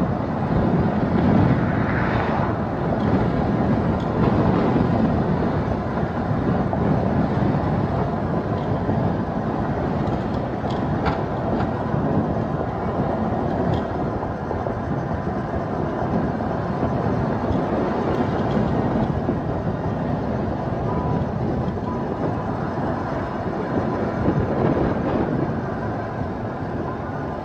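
A car driving along a road: steady rumble of tyres and engine with a few faint ticks.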